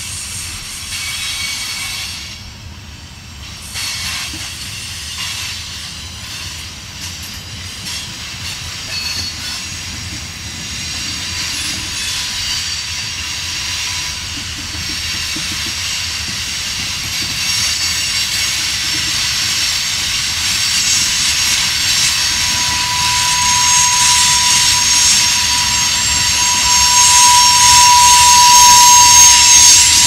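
Freight train's covered hopper cars rolling past, steel wheels on rail with a steady hiss that grows louder. A thin, steady wheel squeal sets in about halfway through and grows stronger near the end.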